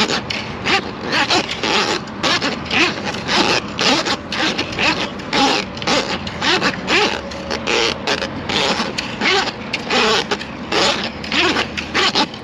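Milwaukee M18 drain snake running, its spinning cable rattling and scraping unevenly.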